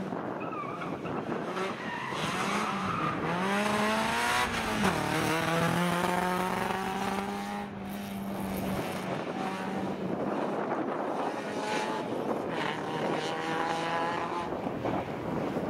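Rally car engine at high revs as the car drives past, its pitch climbing and dropping again and again with gearshifts and lifts off the throttle, with a steadier stretch in the middle.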